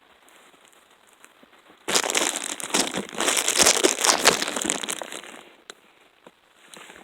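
Loud, close rustling and crackling of leafy brush. It starts suddenly about two seconds in and dies away about three and a half seconds later.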